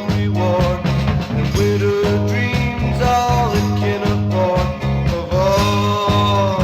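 Baroque pop band recording playing: a steady, repeating bass line and drums under a melodic lead line that bends in pitch.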